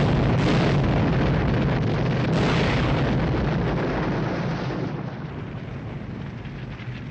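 Film sound effect of a car exploding: a loud blast with a second surge about two seconds in, then a rumble of burning that eases after about five seconds.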